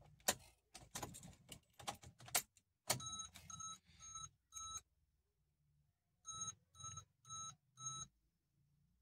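Car keys clicking and rattling at the ignition, then the Ford Figo's dashboard warning chime beeping with the ignition switched on: two runs of four beeps, about two a second.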